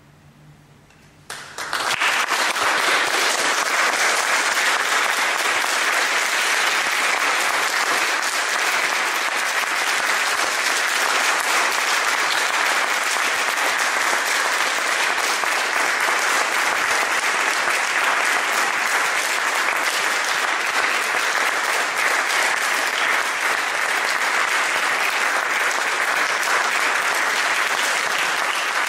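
Audience applauding after a live performance, breaking out suddenly about a second in and then carrying on steadily.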